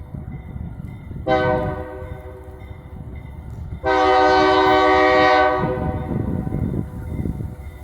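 Multi-chime air horn on a GE B23-7 diesel locomotive sounding: a blast about a second in that drops back to a quieter held note, then a louder long blast about four seconds in lasting about a second and a half. A low rumble from the moving train runs underneath.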